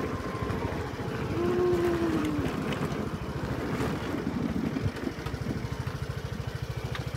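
Motorbike engine running at low speed with a steady rapid putter. A short rising-and-falling tone sounds over it about a second in.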